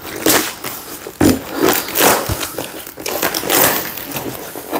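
Paper and parcel packing being handled, torn and crinkled open, an irregular run of rustles and scrapes.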